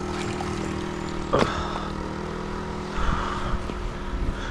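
A neodymium fishing magnet on a rope hits the river with a single sharp splash about a second and a half in. A steady low hum runs underneath, and there is a brief rustle and rumble near three seconds.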